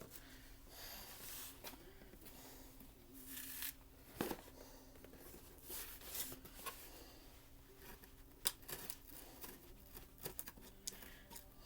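A package being opened by hand: faint scraping, rustling and small clicks of packaging being cut and pulled apart, with sharper clicks about four seconds in and again around eight and a half seconds.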